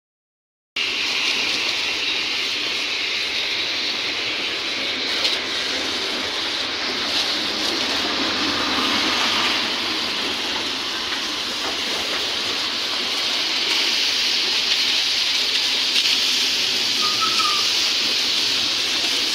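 High-pressure water jet from a pressure washer spraying against a dump truck's tipped body and chassis: a steady hiss that starts just under a second in and runs on evenly.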